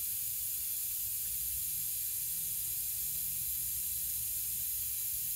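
Compressed air hissing steadily from the air line and regulator fitting as the Ferret's fluid flywheel is pressurized for a leak test of its new seal, over a low rumble.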